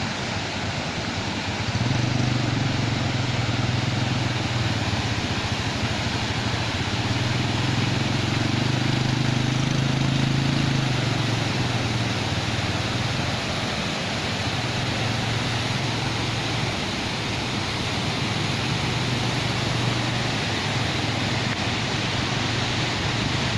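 Waterfall water rushing in a steady roar of noise. A steady low engine-like hum sits under it from about two seconds in until near the end.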